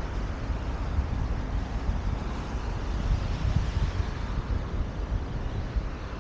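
Wind buffeting the microphone in uneven gusts of low rumble, over a steady outdoor hiss.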